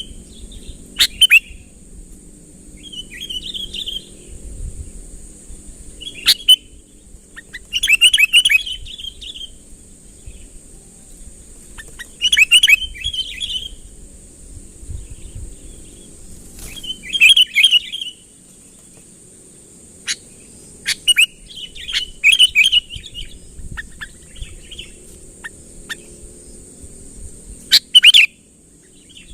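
Sooty-headed bulbul (kutilang) singing: short, bubbly chirping phrases repeated every few seconds. This is the gacor song used to call rival birds in.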